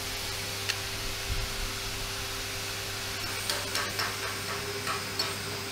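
Arc welder tack-welding steel braces: a steady hiss from the arc, turning into a run of sharp crackles and pops from about three seconds in, over a steady electrical hum.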